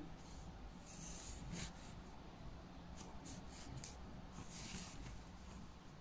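Faint rustling and soft scraping of a ball of yarn being picked up and handled, in a few short brushes.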